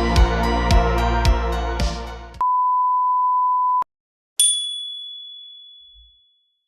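Music with a steady beat stops about two seconds in. A steady electronic beep follows for about a second and a half, then a short gap, then a single bright ding that rings away.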